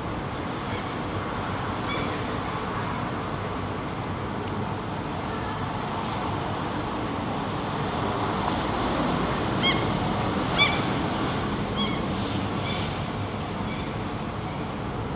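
Common gull (Larus canus) calling in flight: two faint short calls in the first couple of seconds, then a run of about six short, high calls roughly a second apart in the second half. Beneath them is a steady low background rumble.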